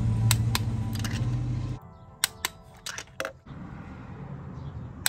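Several sharp metallic clicks from a torque wrench set to 22 foot-pounds as spark plugs are tightened down, over background music.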